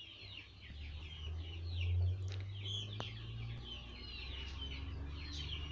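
Background birds chirping over and over, possibly chickens, with a low hum underneath that swells about two seconds in.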